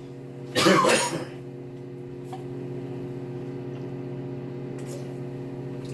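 Microwave oven running with a steady electrical hum while heating a frozen brownie on high, with one short louder noise about half a second in.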